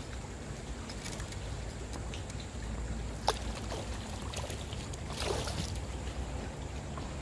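A small hooked fish dropping back into the water and splashing at the surface: a sharp smack about three seconds in, then more splashing about two seconds later. Underneath is a steady low noise of wind and water.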